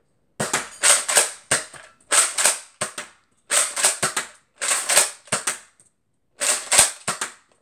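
Nerf Retaliator blaster being primed and fired over and over. Five clusters of sharp plastic clacks from the priming slide and trigger, one about every second and a half.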